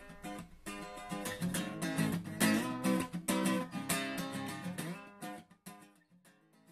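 Background music of strummed and plucked guitar, fading much quieter about five seconds in.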